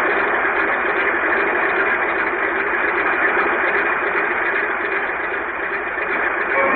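Propeller aircraft engine running steadily, a cartoon sound effect with an even, dense drone.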